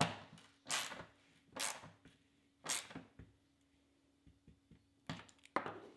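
A hex key turning a T-slot bolt to lock an MDF sheet to a CNC router's T-slot frame: four short scraping strokes about a second apart, then a few fainter ticks near the end.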